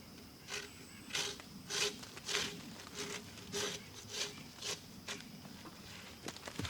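Brush scrubbing dirt off the bark of a white oak log, in short scratchy strokes at about two a second.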